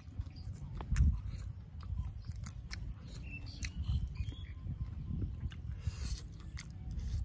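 Close-up chewing and crunching of a mouthful of raw leafy greens, with many small sharp crunches and one louder crunch about a second in.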